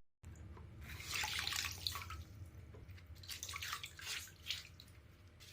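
Faint, irregular water sloshing and trickling as headset ear pads are lifted and handled in their soaking water of oxygen-cleaner solution.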